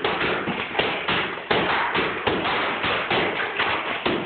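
Hammers striking a plaster and wooden lath wall during demolition: quick, irregular blows from two people, about four a second.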